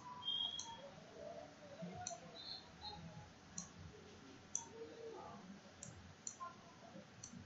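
Computer mouse clicking: about seven single clicks at uneven intervals, roughly a second apart.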